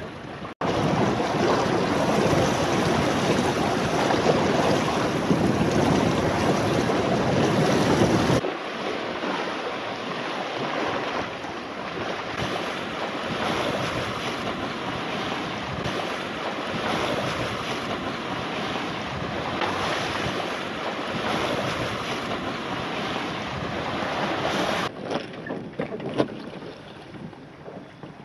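Wind buffeting the microphone over the rush of sea water around a sailing yacht under way. The noise changes abruptly three times, as between separate clips: it grows louder about half a second in, drops about eight seconds in, and drops again near the end.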